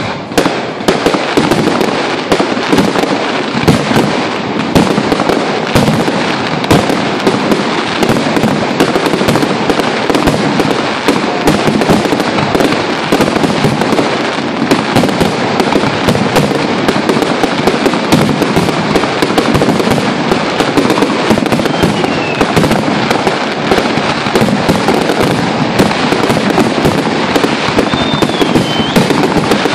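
Fireworks finale: a dense, unbroken barrage of shell bursts and crackling, with no let-up. Two short whistles cut through in the second half.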